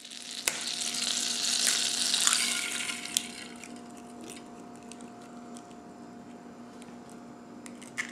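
An egg frying in a small stainless steel fry pan: a loud sizzle as it lands in the hot pan, easing after about three seconds into a steady, quieter sizzle with small pops.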